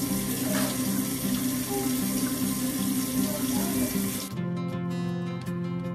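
Running water, a steady rush that cuts off about four seconds in, over background music.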